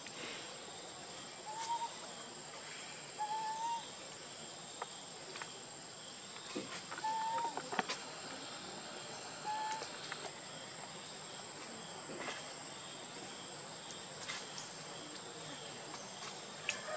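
Outdoor ambience: a steady high insect drone, with four or five short tonal calls spaced a few seconds apart and a few scattered clicks.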